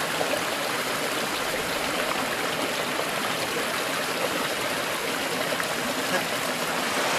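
Small stream running steadily over a riffle and small waterfall, an even hiss of water.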